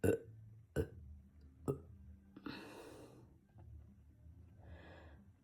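A man burping from carbonated Coke: three short, sharp burps less than a second apart, then two longer breathy sounds.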